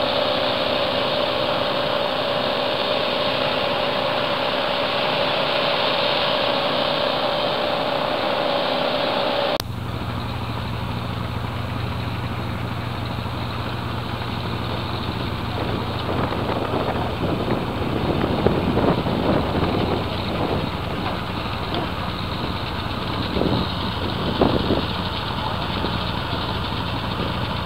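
Cruise boat's engine running steadily, heard from the deck. About ten seconds in, the sound changes abruptly to a deeper, lower engine hum.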